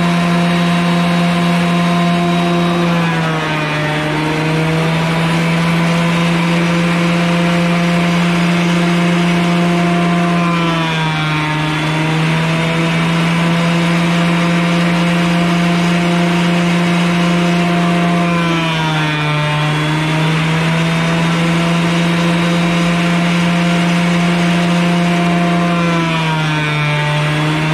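Grizzly 12½-inch portable planer running with a steady whine. Its pitch sags four times, each for a second or two, as a wood cookie feeds through and the cutterhead takes a cut and loads the motor.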